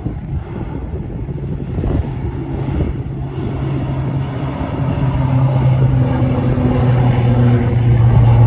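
Airliner engines at takeoff power during the takeoff roll: a steady low hum with overtones over a rumble, growing steadily louder.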